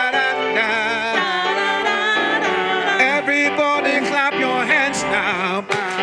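Live gospel praise music: voices singing with heavy vibrato over a church band of drums and keyboard, with hand claps from the congregation.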